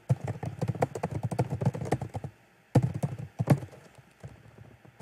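Typing on a computer keyboard: a fast run of key clicks for about two seconds, a brief pause, then a few more keystrokes.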